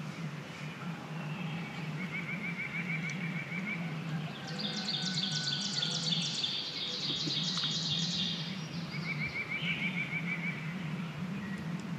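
Songbirds singing in spring woods: a fast, even trill twice, with a busier, higher-pitched song in between, over a steady low hum.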